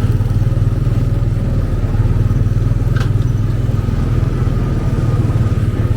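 Small petrol engine of a theme-park speedway ride car running steadily under way, a loud, even throb that is really noisy.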